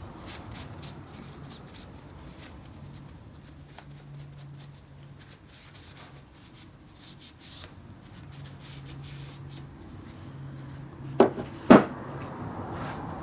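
Rubbing and light scraping by hand on metal lathe parts during rust cleaning, with scattered small clicks. Two sharp knocks come close together near the end.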